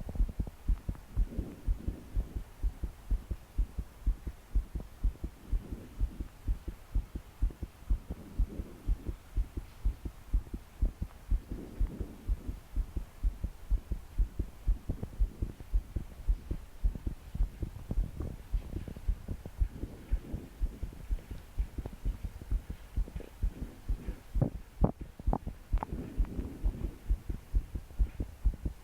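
A young woman's fast, pounding heartbeat, heard close up as a steady run of low lub-dub thumps, which she tags as palpitations. Slow breaths swell in and out every few seconds, and a few sharper clicks come near the end.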